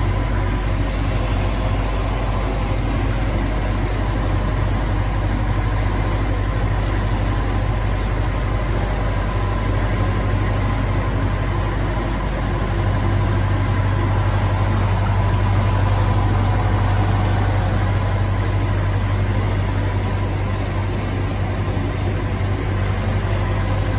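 Narrowboat engine running steadily inside a brick canal tunnel, a low hum that grows a little louder about halfway through.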